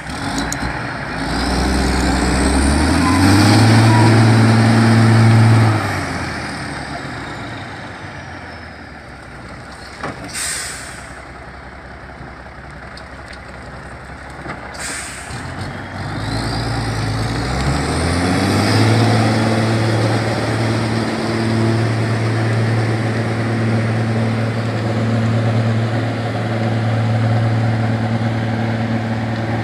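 Heavy logging truck's diesel engine revving up under load with a rising whine, then easing off. Two short bursts of hiss come in the quieter middle stretch. The engine then climbs again and runs steadily under load.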